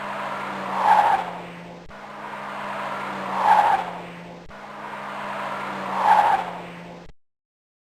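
Car driving on a flat tyre: a steady low engine hum under a noisy rush of rubber on the road that swells loudly three times, about two and a half seconds apart. The sound cuts off suddenly near the end.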